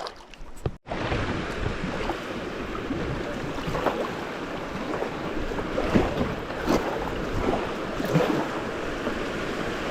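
Steady rush of moving creek water around a kayak, starting abruptly about a second in, with a few short louder splashes.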